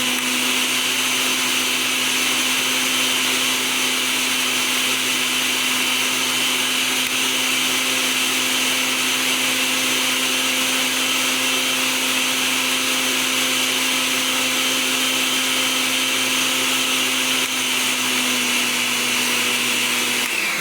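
Electric kitchen blender running steadily at full speed, liquefying lemon juice and garlic: an even motor hum with a high hiss.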